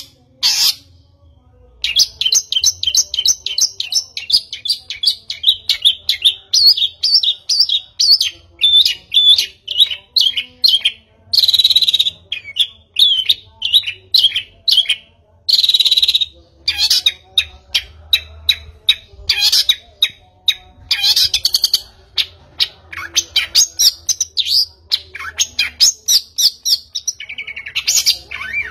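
A bird chirping in long, quick runs of short high notes, with a brief pause right at the start and a few longer buzzy notes around the middle.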